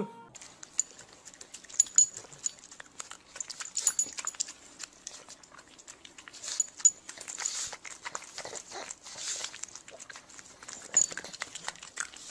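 A dog making a string of short, noisy, irregular sounds and clicks.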